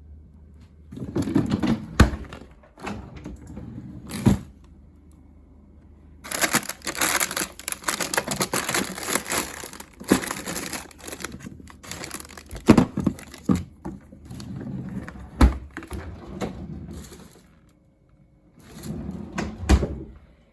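Handling noises: crinkling and rustling in bursts, with sharp knocks and clicks among them.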